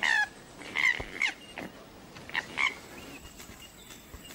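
Koala giving about five short, sharp squawks in quick succession, the first dropping in pitch, then falling quiet.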